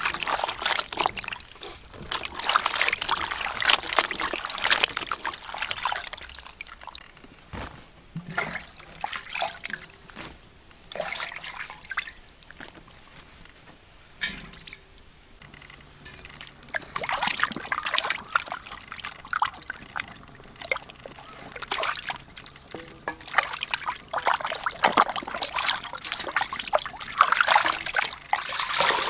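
Hands swishing and splashing water in a metal bowl while washing mushrooms and then a whole chicken. The water sounds come in irregular bursts, with a quieter stretch about halfway through.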